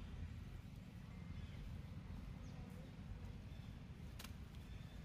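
Forest ambience: a steady low rumble on the microphone with a few faint, short high chirps scattered through it and one sharp click about four seconds in.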